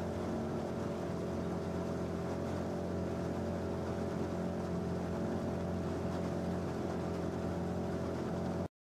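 Outboard motor of a following launch running steadily, a constant hum that cuts off suddenly near the end.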